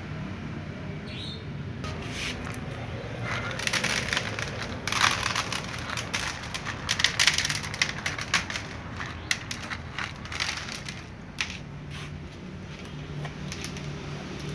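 Several cats crunching dry kibble: an irregular run of sharp crackling chews, busiest in the middle and thinning out near the end, over a steady low hum.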